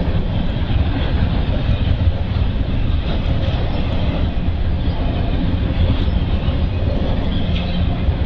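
Double-stack container freight train rolling past, a steady rumble of wheels on rail.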